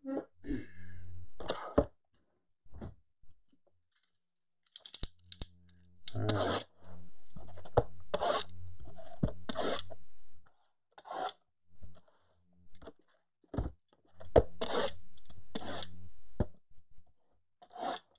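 Shrink-wrapped cardboard blaster boxes being picked up, shuffled and set down on a granite countertop: a series of rustles, plastic crinkles and sharp knocks, with a low hum under the louder handling noises.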